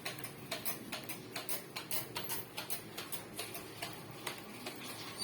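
Hand trigger spray bottle pumped quickly and repeatedly, about three short sprays a second, misting a homemade cleaning solution onto a wall.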